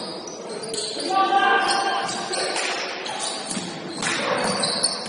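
Sounds of a basketball game in a gym: players' voices calling out and echoing in the hall, with the ball bouncing on the court.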